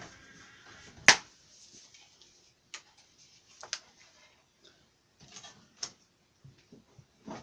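Handling noises: a loud, sharp click about a second in, then a few fainter clicks and knocks with soft rustling between them.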